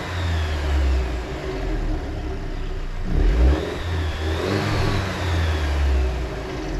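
2019 Alfa Romeo Stelvio's engine and drivetrain pulling under load, the pitch rising and falling twice about three seconds apart over a steady low hum. The owner made the recording to capture a grinding noise from the vehicle.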